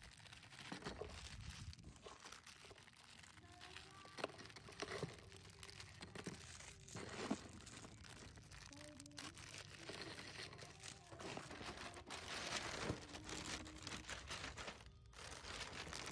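Plastic biscuit wrappers crinkling and tearing as Parle-G packets are ripped open by hand, with biscuits clattering lightly into a cardboard box. Irregular rustling and crackles, growing denser and louder around two thirds of the way through.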